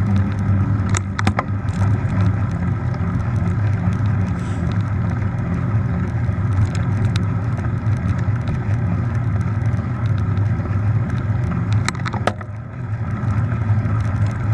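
Mountain bike rolling along a concrete path: a steady rumble of tyre and wind noise on the bike-mounted camera, with two pairs of sharp clicks from the bike, about a second in and near the end.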